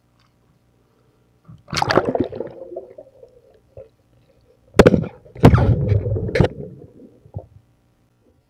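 Water gurgling and sloshing around an underwater camera in two loud bursts: one about two seconds in, lasting around a second, and a longer one from about five to seven seconds in.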